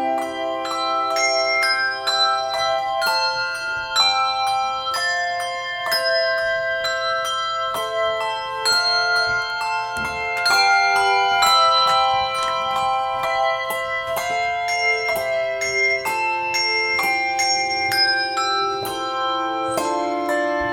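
Handbell choir playing: many bells struck in chords, each note ringing on and overlapping the next.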